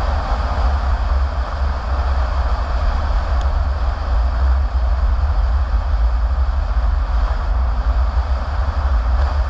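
Steady driving noise of a car heard from inside the cabin: a deep, constant rumble with tyre and road hiss, unchanging throughout.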